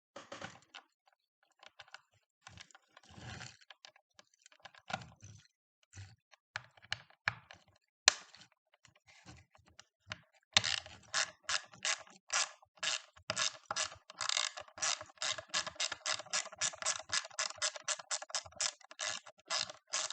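A ratcheting hand driver clicking while turning screws. The first half holds scattered small clicks and handling scrapes, with one sharp click partway through. From about halfway on, the ratchet clicks run in quick, evenly spaced strokes, several a second.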